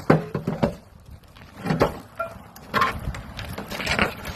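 Parts of a Reed Lova gunite machine knocking and clunking as it is pulled apart: a string of separate heavy knocks.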